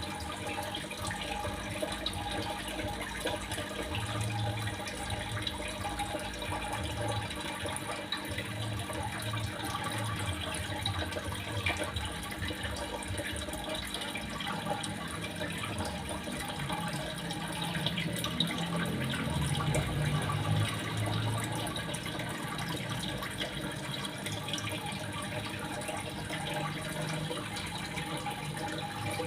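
Steady running water, trickling and splashing without a break.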